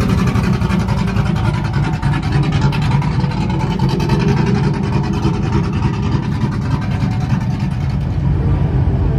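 A truck engine running steadily, with a constant low rumble.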